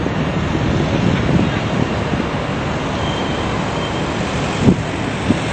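Steady outdoor rumble and rushing noise, with a short knock near the end.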